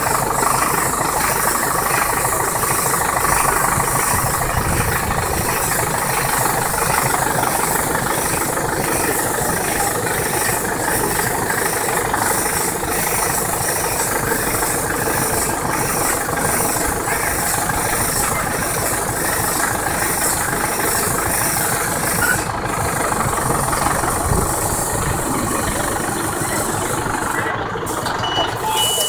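Zetor tractor engine running steadily as it drives a McHale round-bale wrapper wrapping a bale in stretch film, with a faint regular repeating pattern over the engine. A steady beeping tone starts right at the end.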